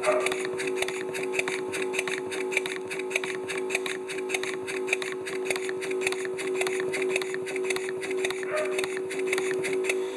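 Two-cylinder V-type steam engine of a 5-inch gauge Heisler model running fast on compressed air at about 8 psi, with rapid, even exhaust beats and clicking of the valve gear. A small spray compressor hums steadily underneath.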